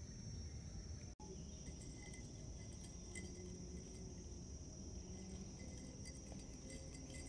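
Faint, steady, high-pitched chirring of insects over a low background rumble. The sound drops out for an instant about a second in.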